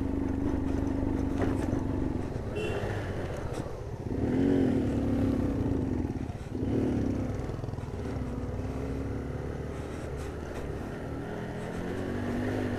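Single-cylinder engine of a Hero Glamour motorcycle running under way. Its pitch rises and falls a couple of times about four to seven seconds in, as the revs change.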